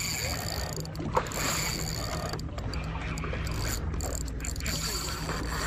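Fishing reel being cranked to bring in line on a hooked fish: a thin high whir from the gears that stops briefly every second or so between turns, over a steady low hum.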